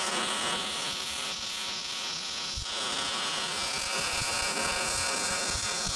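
Electric welding arc burning steadily on steel: an even, dense crackling hiss, a little louder and brighter about halfway through.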